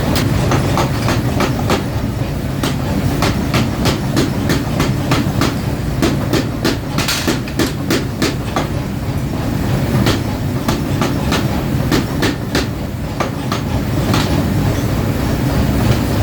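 Workshop machinery running with a steady low hum, overlaid with irregular sharp metallic clicks and knocks.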